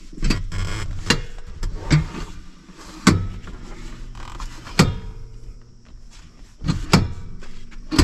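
Passenger seat being turned by hand on a swivel seat base in a Chevy Astro van: a series of sharp metal clunks and knocks, about six in all, with rattling of the seat and base in between.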